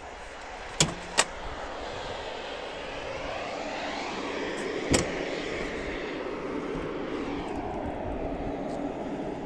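Sharp clicks of a car hood's latch and hinges, twice about a second in and once about five seconds in, as the hood is released and raised. Underneath, a broad rushing noise swells toward the middle and fades.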